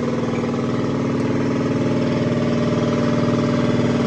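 Shop air compressor running steadily and noisily, its motor and pump building up air pressure in the tank.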